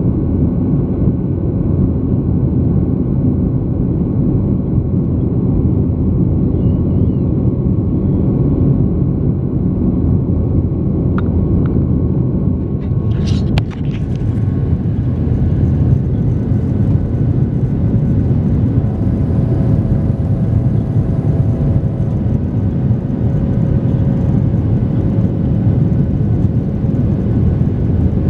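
Steady loud rumble of jet engines and airflow inside an airliner cabin over the wing, as the jet climbs after takeoff. About halfway through, a brief sharp click.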